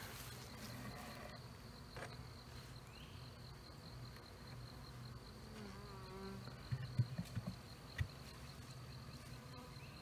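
Honeybees buzzing around an open hive as a swarm cluster is put in, a faint steady hum. A few soft knocks about seven and eight seconds in as the wooden hive lid is set on the boxes.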